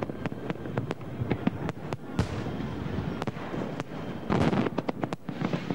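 Aerial fireworks display: a rapid series of bangs and pops from bursting shells, with longer crackling bursts about two seconds in and again about four seconds in.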